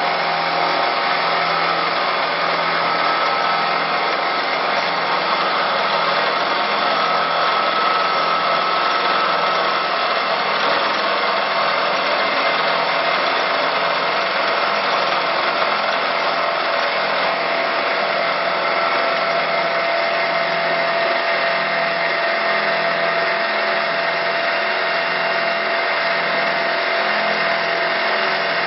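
CNC wood turn-broaching lathe running steadily: a dense, even machine noise with a few steady hums, unbroken throughout.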